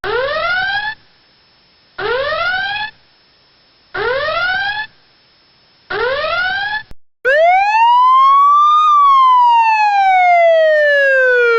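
Electronic alarm sound effects: four rising whoop tones, each about a second long, repeating every two seconds. Then a single long siren wail that rises for about a second and a half and falls slowly until the end.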